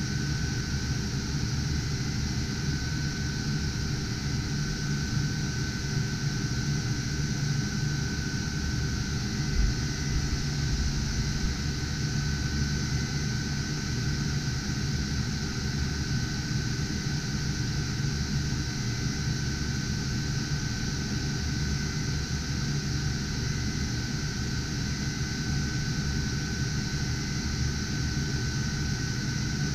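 Cooling fans of a GPU mining rig running with a steady whoosh and a thin, steady whine.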